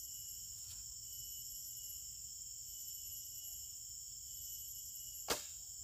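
Horsebow shot from full draw: one sharp snap of the released bowstring about five seconds in, over a steady high insect chorus.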